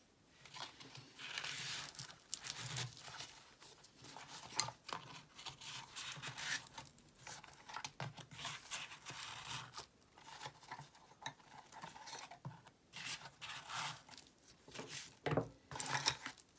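Rustling and rubbing of a fabric tool pouch as plastic-insulated interchangeable screwdriver blades are slid into its slots, with many small clicks and knocks of the blades throughout.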